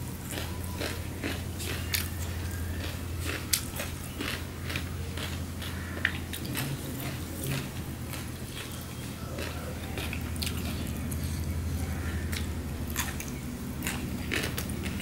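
Close-up chewing and biting of a mouthful of rice and vegetables eaten by hand, with many small irregular wet mouth clicks and some crunch. A steady low hum runs underneath.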